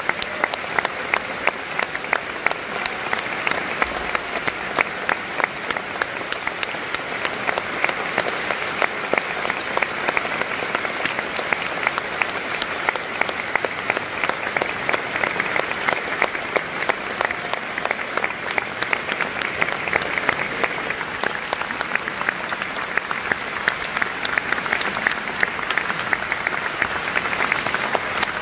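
Audience in a concert hall applauding steadily, a dense patter of many hands clapping that eases slightly near the end.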